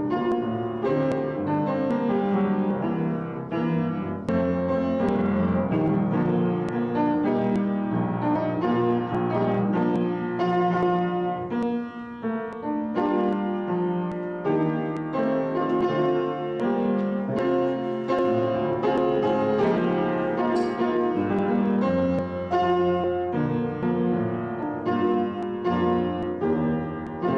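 Piano playing a continuous piece, with chords and sustained notes.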